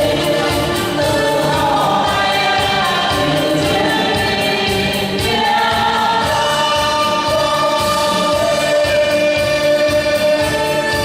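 A choir singing a Vietnamese march over an instrumental backing with a steady beat.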